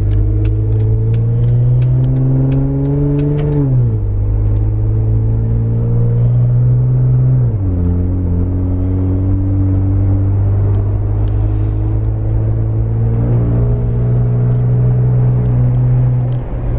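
Jeep Wrangler Unlimited's 3.6 L V6 through a Magnaflow 15117 Competition Series exhaust, heard from inside the cabin while accelerating through the gears. The engine note climbs, drops at a shift about four seconds in, climbs again and drops at a second shift near eight seconds, then settles to a steady cruise.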